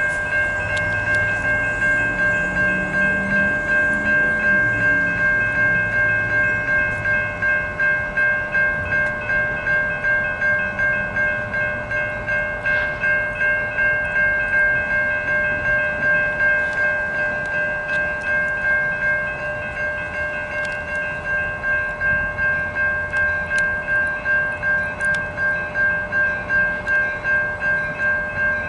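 Railroad crossing bells ringing steadily at about two strokes a second, the crossings activated for an approaching train. A low rumble sits underneath during the first several seconds.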